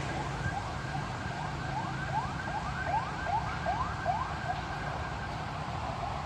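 Short rising siren-like chirps repeating about three times a second, swelling and then fading, over a steady hiss of heavy rain.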